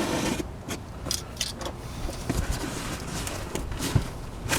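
Scattered rustling and light knocks from a cardboard box and its packaging being handled, over a low steady background hum.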